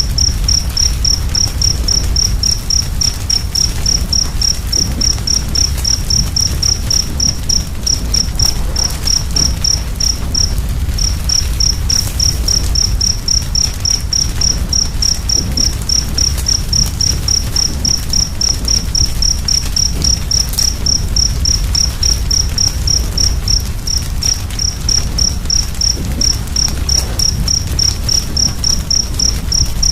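A cricket chirping steadily, about three short high chirps a second, pausing briefly near the middle. Under it run a low steady rumble and a few faint crackles of a wood fire.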